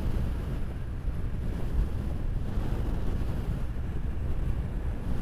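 Wind buffeting the microphone of a motorcycle cruising at highway speed, a steady low rumble of wind and road underneath.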